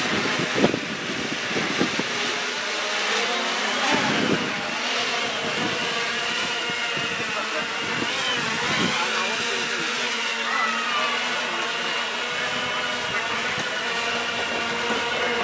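Radio-controlled hexacopter's electric motors and propellers buzzing steadily while it hovers, the pitch rising and falling a little as the throttle changes. A sharp knock sounds about half a second in.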